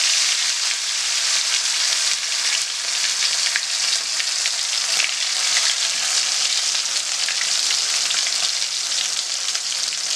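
Marinated chicken drumsticks shallow-frying in hot oil in an iron kadai: a loud, steady sizzle with fine crackling.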